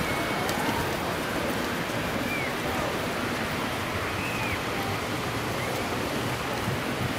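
Steady hiss of ocean surf, with a few faint distant voices.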